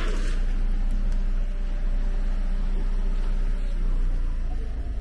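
Car engine idling steadily, a low even hum heard close to the exhaust.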